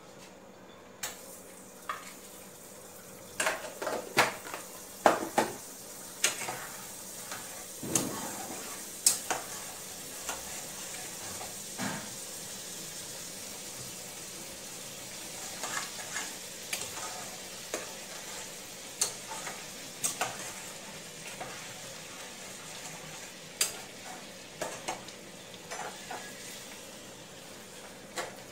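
Butter sizzling in a small tadka pan over a gas flame, a steady hiss, with scattered sharp clinks and scrapes of a metal ladle and spoon against the pots, busiest in the first several seconds.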